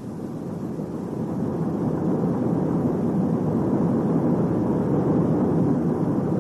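A deep rushing rumble, like a vehicle passing close, swells up over the first couple of seconds, holds steady, then starts to fade near the end.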